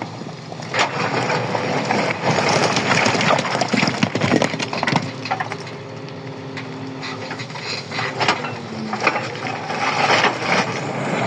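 An engine running under repeated knocks and cracks, as of rock or material breaking, with a faint steady hum in the middle stretch.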